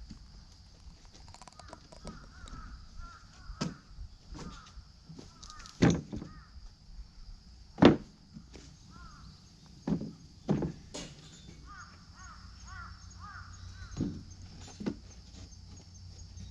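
Crows cawing in several clusters of short harsh calls over a steady high hiss, with a series of sharp knocks. The loudest knocks come about six and eight seconds in.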